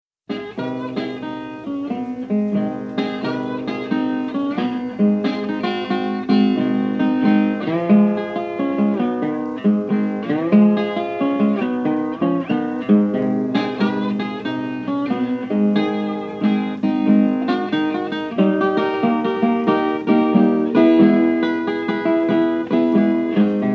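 Blues slide guitar playing an instrumental introduction: plucked notes, some sliding in pitch, over a repeated bass figure, with no singing yet.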